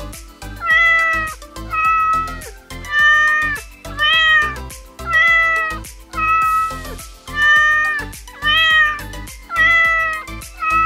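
A cat meowing over and over, about ten drawn-out meows at roughly one a second, each held and then falling away at the end.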